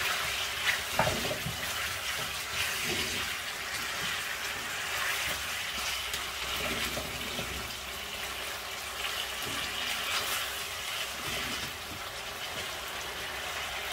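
Chicken pieces sizzling steadily in oil and tikka masala in a non-stick frying pan on low heat, with a few light scrapes and knocks of a silicone spatula as they are stirred.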